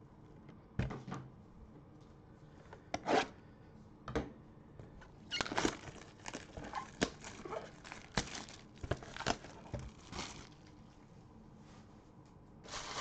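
Gloved hands handling a cardboard trading-card box and plastic card cases: a few separate scrapes and taps, then a busier run of rustling and knocks from about five to ten seconds in.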